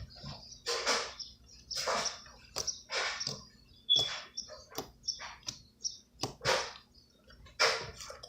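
Homemade wax slime being squeezed and worked in the hands: a run of wet squelches and sticky pops, about one a second.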